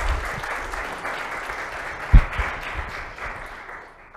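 Audience applauding, fading away toward the end, with one low thump about two seconds in.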